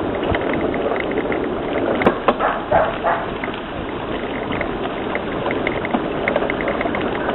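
Wind buffeting the microphone over a steady rough rumble of riding a mountain bike on an off-road trail, with a light, regular ticking.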